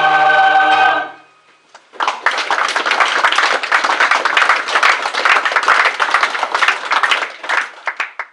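A choir's final held chord cuts off about a second in. After a short pause the audience applauds, and the applause thins to a few scattered claps near the end.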